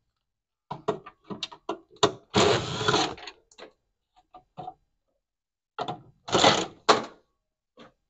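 Cordless drill-driver running in two short bursts to back out the screws of a washing machine's plastic motor guard, about two and a half seconds in and again near six and a half seconds, amid clicks and knocks of the tool against the plastic cover.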